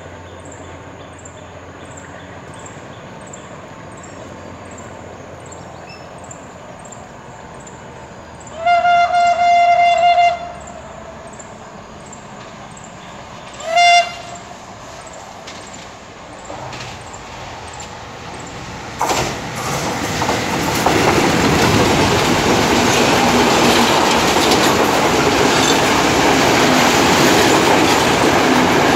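Diesel-hauled express train sounding its horn, one long blast of about a second and a half and then a short toot a few seconds later. It then passes close below, and the running noise of the locomotive and carriages on the rails builds up and stays loud.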